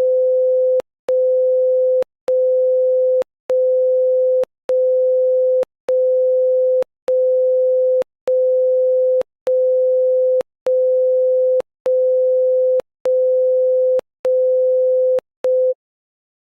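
Emergency alert signal: a single steady mid-pitched tone beeping on and off in an even rhythm, about one beep every 1.2 seconds, each about a second long with a click at its start and end. Thirteen full beeps and a short fourteenth, then it stops abruptly.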